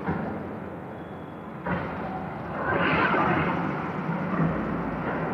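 Rustling handling noise as a PTFE filament tube is worked into its fitting on a 3D printer's print head. It grows louder about halfway through, with no sharp clicks.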